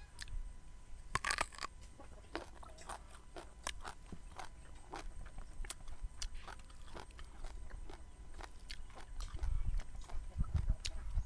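A person chewing crunchy raw vegetables close to the microphone: a run of sharp, irregular crackles and clicks. A low rumble swells briefly near the end.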